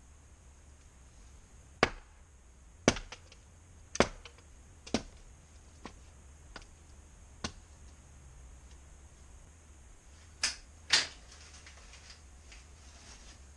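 Firewood being chopped with an axe: a series of sharp single chopping knocks, about a second apart at first, then two longer, duller knocks near the end.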